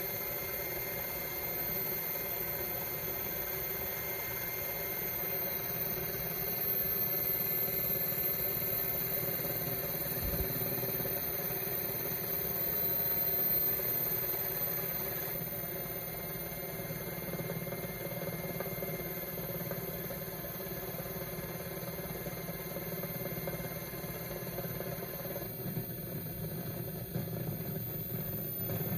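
Steady mechanical drone with a constant high-pitched whine over it, swelling slightly around the middle.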